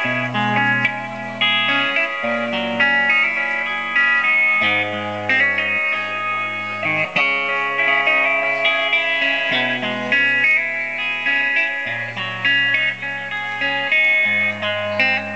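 Live band playing amplified music: electric guitar through effects plays a repeating pattern of notes over low held notes that change every second or two.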